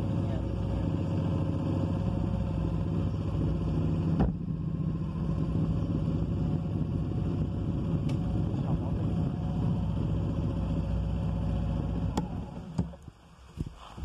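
Motorcycle engine running steadily at low speed on a rough, rocky trail. About twelve seconds in the engine sound drops away, with a few sharp knocks.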